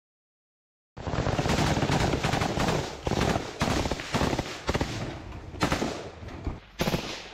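Close-range automatic rifle fire from several soldiers in dense, overlapping bursts, starting suddenly about a second in after silence, with a few brief lulls near the end.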